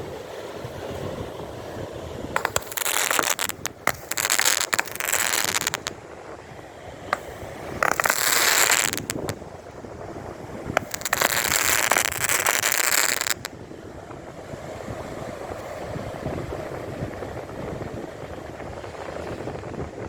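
A 30-shot Britannia Blaze firework barrage firing: sharp shots and four loud spells of dense crackling, cutting off about thirteen seconds in, short-lived and with nice crackles. Wind on the microphone and surf run underneath.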